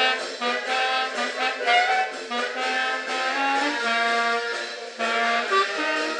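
A wind or reed instrument played solo, a melody of quick, changing notes.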